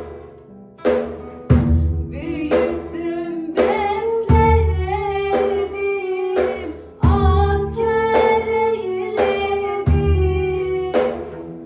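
A woman singing a Turkish folk song, accompanied by guitar and a bendir frame drum. Deep drum strokes land about every three seconds under the sung melody.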